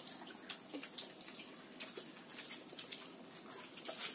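Several people eating rice and dal with their hands from steel plates: scattered soft clicks and smacks of fingers against the plates and mouths chewing, the sharpest near the end, over a steady high-pitched whine.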